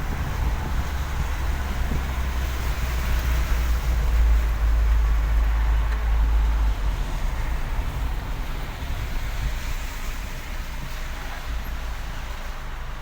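Road and wind noise of a moving vehicle: a deep, steady rumble with wind buffeting the microphone, swelling a few seconds in and easing toward the end.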